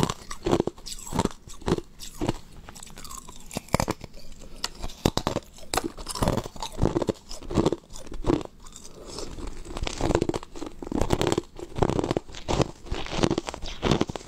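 Ice being bitten and chewed close to the microphone: a string of sharp, irregular crunches with chewing between them.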